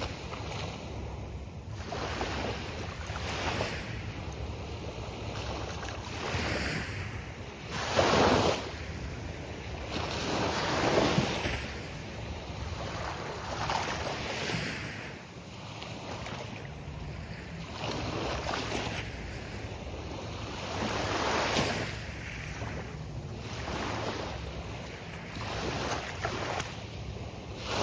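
Gulf of Mexico surf: waves breaking one after another in surges every few seconds. The biggest breaks come about eight and eleven seconds in.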